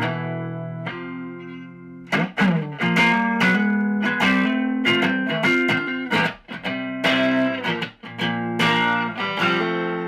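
A 1963 Fender Stratocaster electric guitar played through an amplifier. A chord is struck and left ringing for about two seconds, then he plays a run of strummed chords and picked notes.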